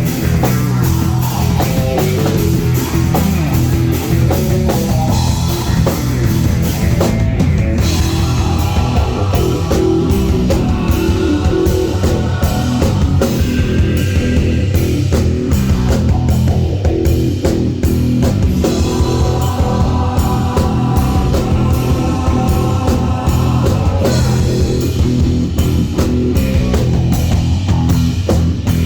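A rock band playing live and loud: distorted electric guitar over bass and a driving drum kit.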